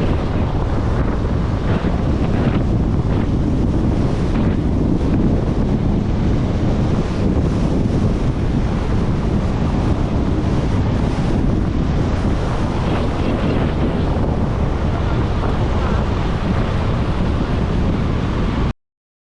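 Strong wind buffeting the microphone: a loud, steady rushing noise that cuts off suddenly near the end.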